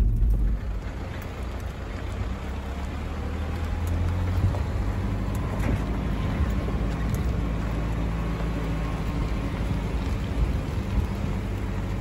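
Four-wheel-drive engine running low and steady on a rocky summit track, heard from inside the vehicle. About four and a half seconds in, the heavy low rumble gives way to a lighter, more even noise of a four-wheel drive crawling on the track.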